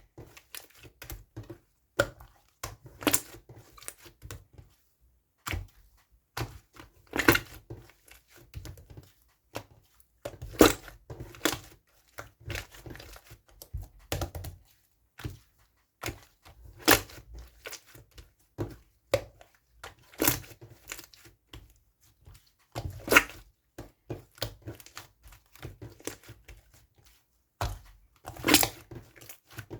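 Slime being pressed and stretched by hand, with a steady run of small crackling clicks and a louder air-bubble pop every few seconds.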